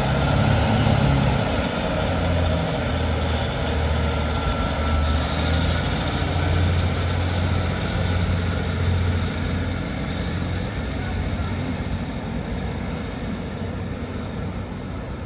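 Class 156 diesel multiple unit pulling out of the station, its underfloor diesel engine giving a steady low drone that slowly fades as the train moves away.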